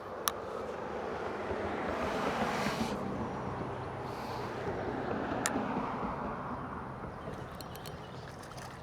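A vehicle going by on a road: its tyre and engine noise swells over the first two or three seconds and then slowly fades away. A few sharp clicks sound over it.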